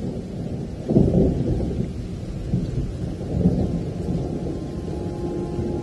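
Thunder rumbling, with a loud peal about a second in, then rolling on; a held musical note comes in near the end.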